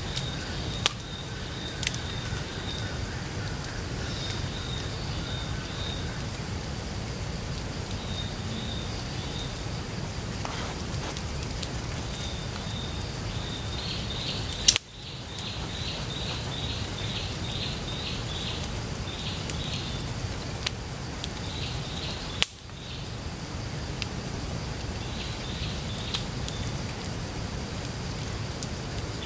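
Forest ambience: small birds give repeated high chirping calls, in quick runs about halfway through, over a steady low background, with a few sharp snaps from the wood campfire.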